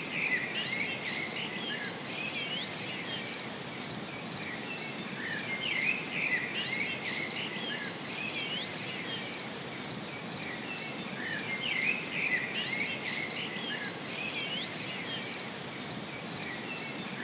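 Nature ambience: crickets chirping in a steady, even rhythm, with small birds twittering over them in bursts that come back about every six seconds.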